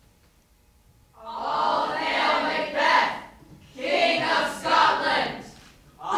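A group of young voices chanting together in unison, after about a second of near quiet. There are two phrases of about two seconds each with a short pause between them, and a third phrase begins at the very end.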